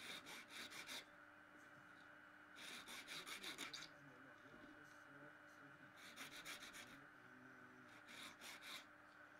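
Needle file rasping the edge of a small mother-of-pearl inlay piece, in four short bursts of quick back-and-forth strokes a couple of seconds apart.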